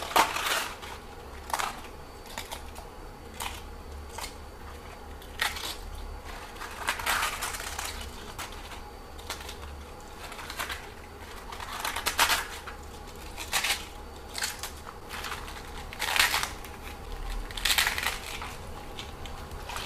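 Raw cabbage leaves torn apart by hand into a stainless-steel bowl. Irregular crisp crunches and rips come roughly every second or two.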